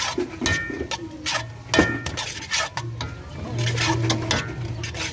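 Metal spatula scraping and clinking against a large metal wok while noodles with cabbage and greens are stir-fried: quick, irregular strokes, a few each second, some with a short metallic ring, over a steady low hum.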